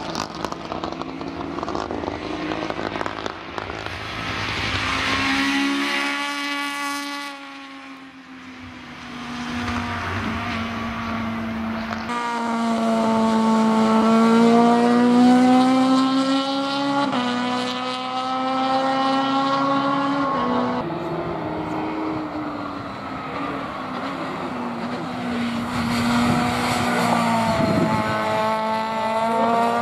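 Race-prepared hatchback's engine at high revs on track. Its pitch rises through each gear and drops sharply at the upshifts, several times over. The sound fades briefly as the car moves away and swells again as it comes closer.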